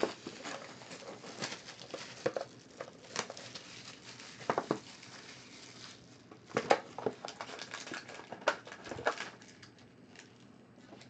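Hands handling sealed cardboard trading-card boxes on a table: irregular taps, knocks and light rustling as the boxes are moved and picked up.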